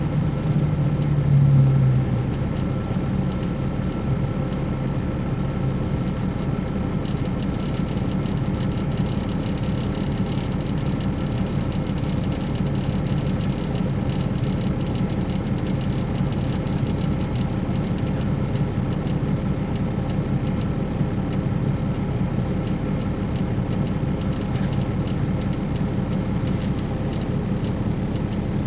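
Caterpillar C13 diesel engine of a 2007 MCI D4500CL coach running steadily, heard from on board the bus. The low drone is a little louder for the first two seconds, then settles to an even level.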